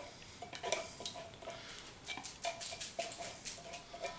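A spatula scraping thick condensed soup out of a tin can, heard as a run of short scrapes and clicks.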